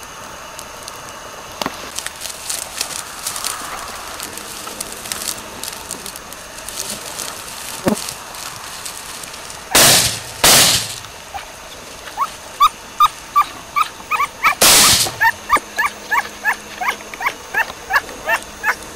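Two shotgun shots in quick succession about ten seconds in, and a third about five seconds later. From just before the third shot, a dog yelps in a fast run of short, high cries, about three a second.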